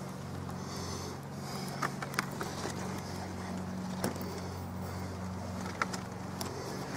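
Steady low mechanical hum, like a motor running, with a few short sharp clicks.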